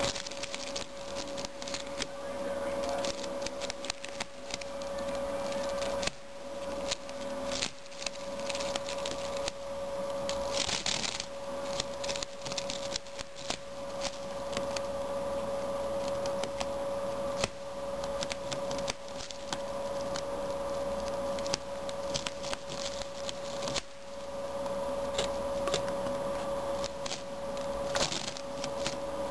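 Rabbit gnawing on a woven dried-grass hut: rapid, irregular dry crunching and crackling of the straw, with a louder rustle about eleven seconds in.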